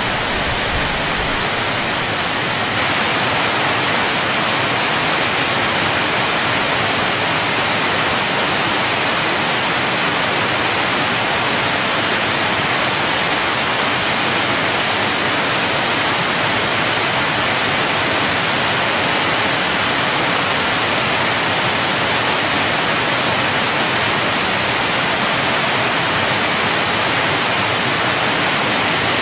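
Large waterfall: a steady, dense rush of falling water, getting slightly louder and brighter about three seconds in.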